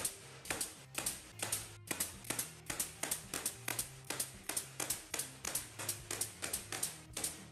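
DeWalt 18-gauge pneumatic brad nailer firing brads through pine boards into plywood in a rapid, even series of sharp clacks, about three a second.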